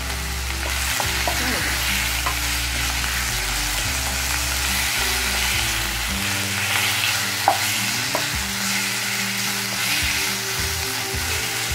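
Chicken pieces sizzling in hot oil in a nonstick pan as they are stirred with a wooden spatula, in the browning stage. The spatula knocks sharply against the pan twice, past the middle.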